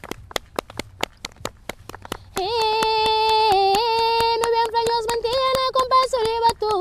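Group of women hand-clapping a steady batuku rhythm, about four to five claps a second. About two and a half seconds in, female singing comes in over the clapping, holding long notes: the opening of a batuku song.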